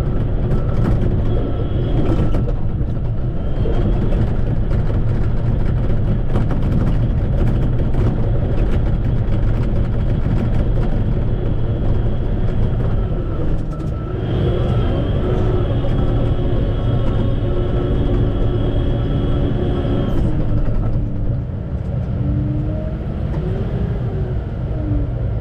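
Shantui crawler bulldozer's diesel engine running under load, with a steady clatter of clicks and clanks from the machine. About halfway through a high whine comes in and holds for several seconds, and near the end the engine pitch dips and rises again.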